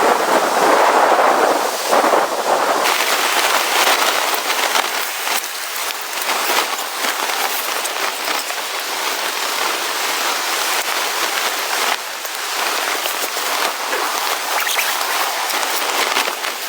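Dense, steady pattering crackle of rain-like hits on a surface, a little louder for the first few seconds.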